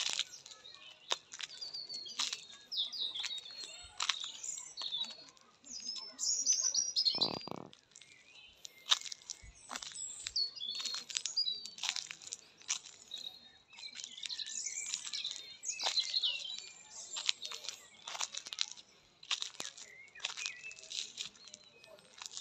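Footsteps crunching on a gravel path at a walking pace of about two steps a second, with small birds chirping and twittering. About seven seconds in there is a brief, louder rushing noise.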